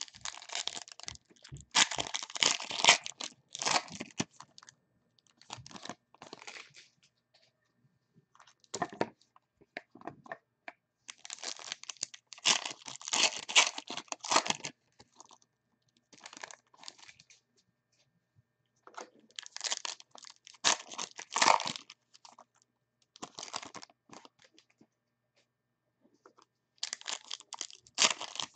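Crinkly plastic wrapping of trading-card packaging being torn and crumpled in repeated bursts with short pauses between them.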